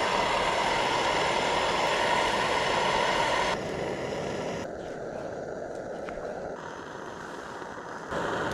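Camp stove burner running with a steady roaring hiss, its level dropping abruptly a few seconds in and jumping back up near the end.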